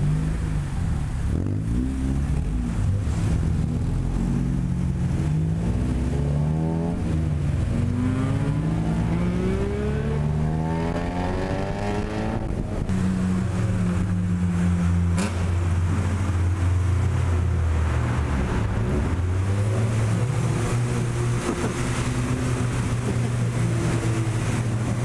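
Car engine accelerating, its pitch climbing and falling back several times over the first twelve seconds, then settling into a steady drone.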